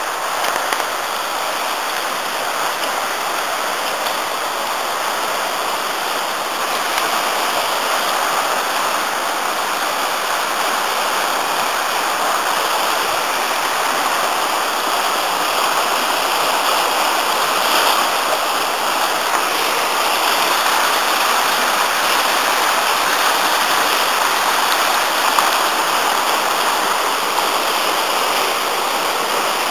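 Afon Artro, swollen after heavy rain, rushing fast through the woods: a loud, steady rush of water that grows a little louder through the second half.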